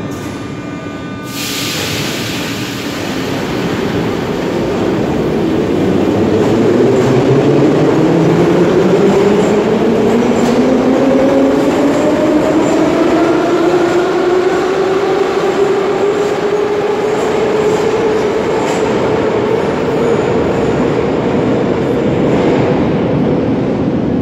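Moscow metro 81-717.5/714.5 train pulling out of the station. A sudden hiss comes about a second in, then the traction motors give a whine that rises steadily in pitch as the train accelerates away, with a few wheel clicks.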